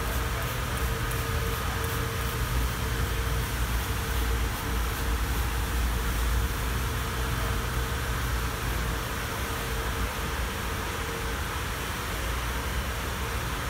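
Steady mechanical hum with a low rumble and a faint steady tone that drops out about eleven seconds in.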